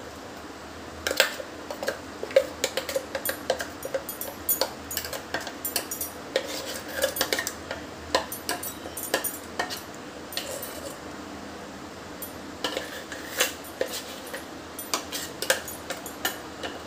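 A metal spoon scraping thick ground moong dal batter out of a metal grinder jar into a glass bowl, with irregular clinks and knocks of spoon on jar and bowl starting about a second in.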